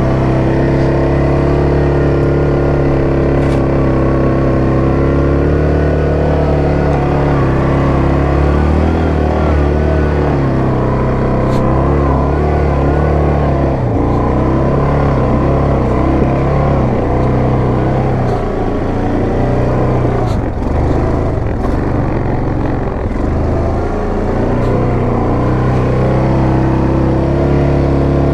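Yamaha Grizzly 700 ATV's single-cylinder engine pulling up a steep, rough trail under load. The engine note is steady at first, wavers and breaks up in the middle over the rough ground, and has a few short knocks.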